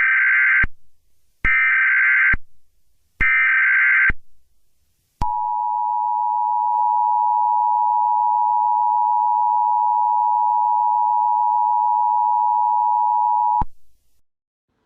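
Emergency Alert System activation: three short bursts of SAME digital header data, about a second each, then the steady two-tone EAS attention signal held for about eight seconds before cutting off sharply. The tones herald a winter storm warning.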